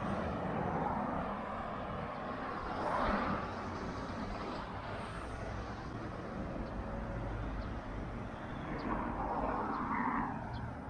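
Road traffic passing on a street: cars going by over a steady hum, one passing about three seconds in and another near the end.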